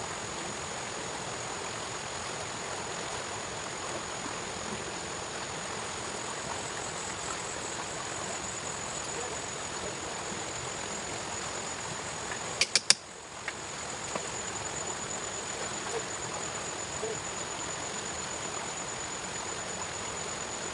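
Steady outdoor ambience: an even rushing like flowing water, with a thin high insect drone held throughout. A quick cluster of sharp clicks comes about two-thirds of the way through.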